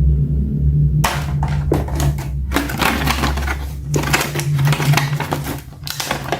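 Quick irregular clicking and crinkling of plastic toy packaging and an action figure being handled, over a steady low background music bed.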